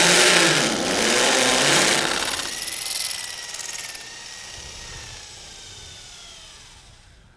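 Rotary hammer drill hammer-drilling into concrete with a carbide-tipped masonry bit. About two seconds in the drilling stops and the motor winds down, leaving a whine that slowly falls in pitch and fades.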